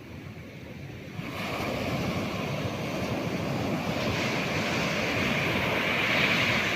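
Ocean waves surging onto the shore: a rush of surf that swells about a second in, builds to its loudest near the end, then begins to ease.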